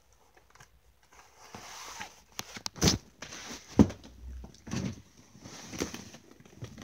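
Handling noise: a run of knocks and clunks, about one a second, starting after a quiet first second and a half, the loudest near the middle.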